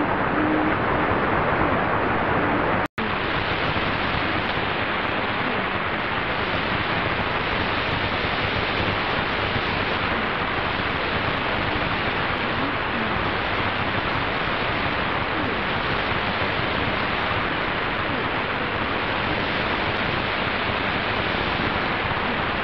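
Steady shortwave hiss and static from portable receivers (a Tecsun PL-680, then a Qodosen DX-286) tuned to 14944 kHz. Buried in it is the weak AM signal of the New Star Broadcasting V13a numbers station, a female voice reading numbers in Chinese that is barely readable through the noise. The sound cuts out for an instant about three seconds in, where the second radio takes over.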